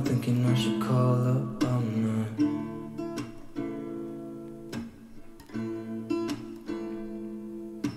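Background song: strummed acoustic guitar chords, with a voice singing in the first two seconds.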